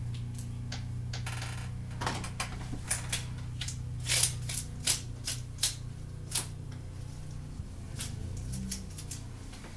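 A run of irregular sharp clicks and taps from small hard objects being handled with gloved hands, over a steady low hum.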